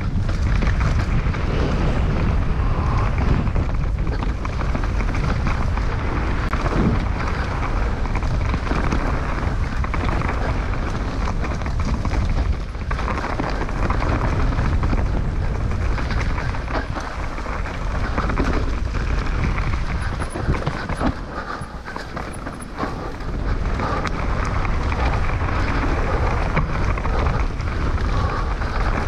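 Wind buffeting the microphone of a camera on a mountain bike at speed, with the bike rattling and knocking over rough trail. It eases off for a couple of seconds about three-quarters of the way in.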